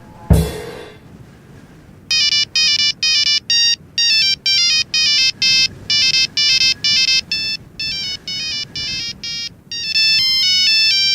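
Mobile phone ringtone: a fast electronic melody of short beeping notes, an incoming call ringing on without being answered, starting about two seconds in. Just before it, right at the start, comes a single loud hit that rings out briefly.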